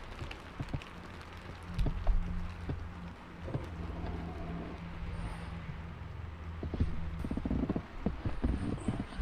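Rain falling on the car's roof and windscreen, heard from inside the cabin, with irregular knocks of heavier drops over a steady low hum. In the last couple of seconds, rustling and low thumps as someone shifts under a blanket.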